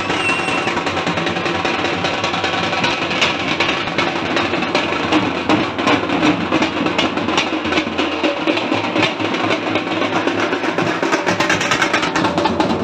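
Fast, dense drumming, strike after strike with no break.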